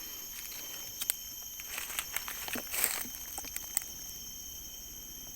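Steady high-pitched drone of forest insects at several fixed pitches, with scattered rustles and snaps of dry leaves and twigs between about one and four seconds in, the loudest rustle near three seconds.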